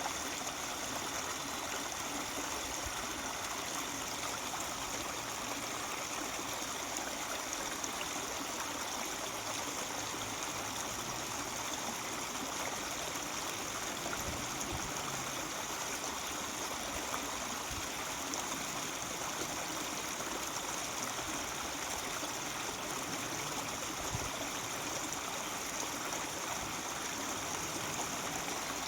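Mountain stream babbling and trickling over rocks, a steady rush of running water.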